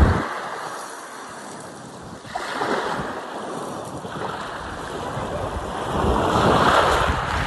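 Sea waves breaking and washing up the shore in slow swells, one building about two and a half seconds in and a bigger one near the end, with wind buffeting the microphone.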